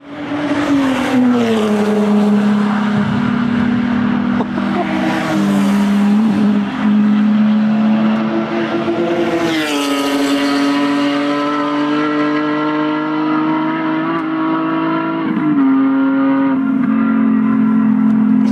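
Several cars passing one after another at speed, engines held at high revs, the engine note shifting in pitch as each goes by. A louder rush about ten seconds in as one passes close.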